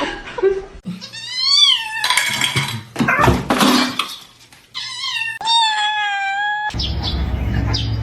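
Domestic cat meowing: a short call that rises and falls, then a long drawn-out meow that cuts off suddenly about two-thirds of the way through.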